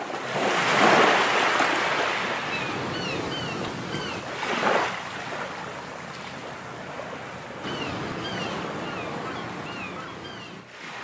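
Ocean surf washing onto the shore, swelling as waves break about a second in and again near five seconds. Short high bird calls chirp over it twice, in the middle and later on.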